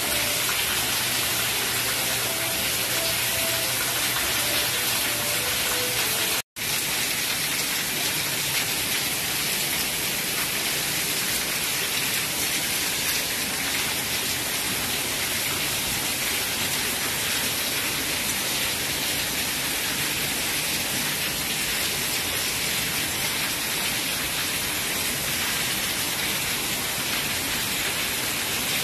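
Heavy rain falling steadily, a dense, even hiss, with water pouring off the roof tiles. It cuts out for an instant about six seconds in.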